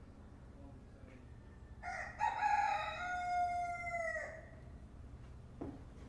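Rooster crowing once, a cock-a-doodle-doo of about two and a half seconds that ends on a long held note falling slightly in pitch.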